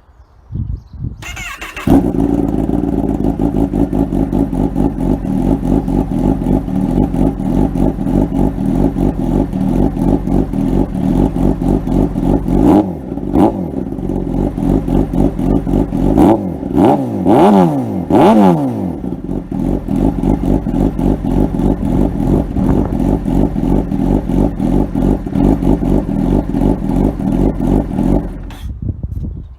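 Sport motorcycle with an aftermarket exhaust being started: a short crank, then the engine catches about two seconds in and idles steadily. It is revved briefly a few times midway, the pitch rising and falling each time, and is switched off shortly before the end.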